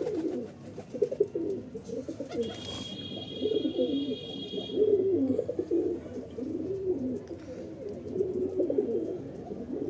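A flock of domestic pigeons cooing, many calls overlapping without pause.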